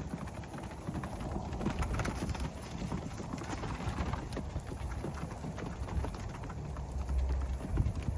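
Footsteps crunching through wet snow, with a steady patter of falling wet snow around them.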